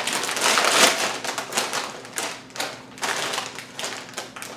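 A plastic bag of corn tortilla chips crinkling as it is pulled open and a hand reaches in. The crinkling is loudest in the first second, then comes in short scattered crackles.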